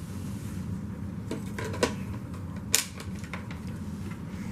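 Removed dirt bin and cyclone assembly of a Hoover Windtunnel 3 upright vacuum being handled: a handful of light clicks and knocks, the sharpest about two and three-quarter seconds in.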